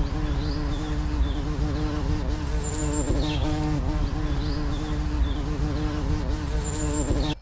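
Honeybee buzzing, a steady hum that wavers in pitch for a moment about three seconds in.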